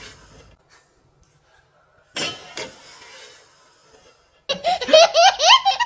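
A brief clatter about two seconds in, then a high-pitched voice laughing in quick rising bursts near the end.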